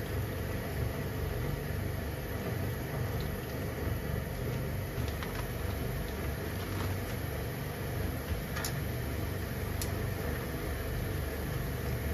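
Steady low mechanical hum, with a few faint clicks in the second half.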